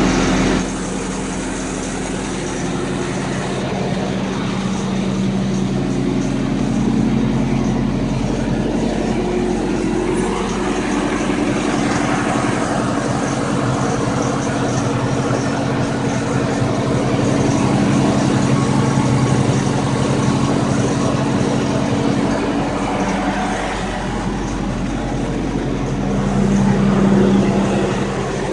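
Toyota engine idling steadily, carrying the noise at idle that the owner is recording to have diagnosed.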